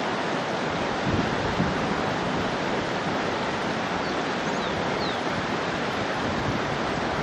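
River water rushing steadily over rocks in a small rapid, an even continuous noise.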